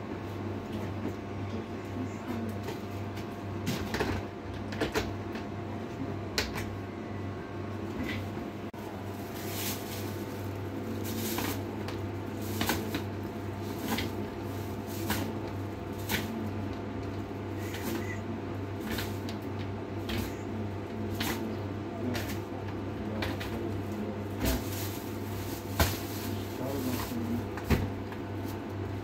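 Scattered clicks, rustles and light knocks of packets and plastic bags being handled on a counter, over a steady low hum.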